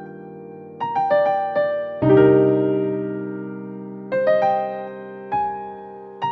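Background music: a calm electric piano playing struck chords and short melody notes.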